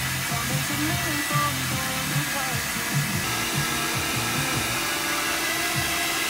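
Hand-held hair dryer blowing steadily, an even airy hiss, over background pop music.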